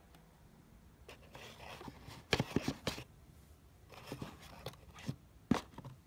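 Cardboard packaging handling: a mobile hotspot being lifted out of its cardboard box insert, with scraping, rustling and a few sharp clicks and knocks, the loudest about two and a half seconds in and another about five and a half seconds in.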